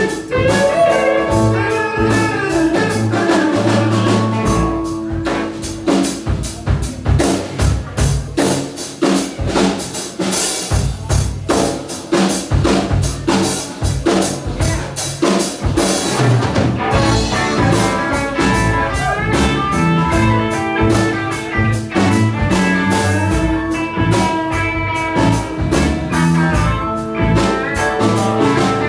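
Live blues-rock band playing an instrumental passage on electric guitars, Hammond organ and drum kit, with busy drumming through the middle.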